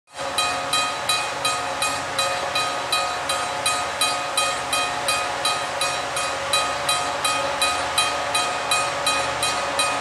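Railroad grade-crossing bell ringing steadily, about three strikes a second, the warning that a train is approaching the crossing.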